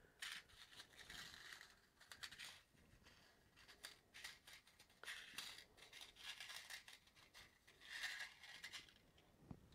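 Faint handling noises: light scrapes and small clicks of metal parts and tools being picked up. They are loudest about eight seconds in, as fingers rummage through a cup of small screws.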